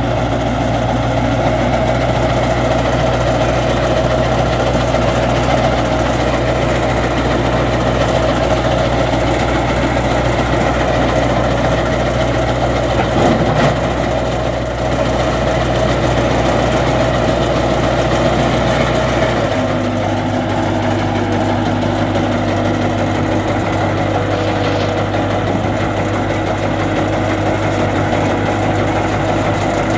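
Skid steer loader's engine running steadily. About two-thirds of the way through, its note shifts slightly lower.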